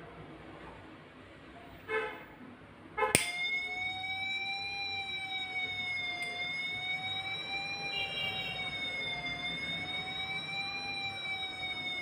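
A couple of clicks, then an electronic siren from an Arduino-driven loudspeaker starts about three seconds in. It is a steady tone whose pitch slowly rises and falls. The alarm has been set off by a lighter flame held at the circuit's flame sensor.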